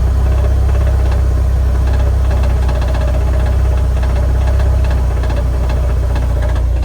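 Porsche 968 Tiptronic's 3.0-litre four-cylinder engine idling, with a fast, steady rattle from near the transmission.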